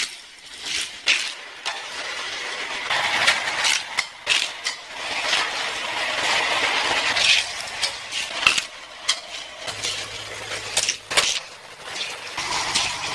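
Hot Wheels die-cast toy cars clattering along orange plastic track, with many sharp clicks and a steady whirring from the battery-powered booster units that shoot them on.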